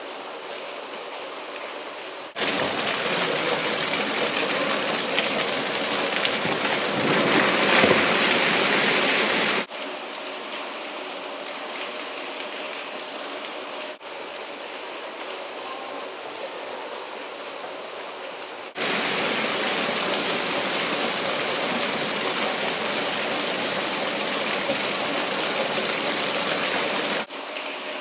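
Dense, rain-like pattering of hundreds of plastic balls bouncing and rolling on the metal steps of an escalator. The patter jumps abruptly louder about two seconds in, drops back about ten seconds in, jumps louder again past halfway and drops near the end.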